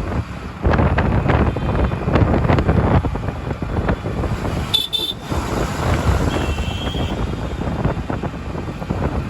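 Busy city road traffic: engines and road noise throughout, with several short vehicle horn toots and one longer horn about six seconds in.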